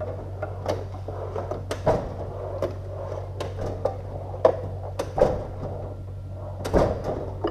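Irregular clicks and knocks of hand tools and metal parts being handled, over a steady low hum.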